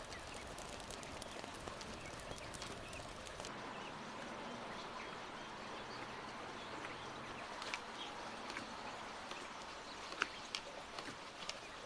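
Hands kneading soft pide dough in a large wooden bowl: quiet pats and presses over a steady outdoor background hiss, with a few sharper taps in the second half.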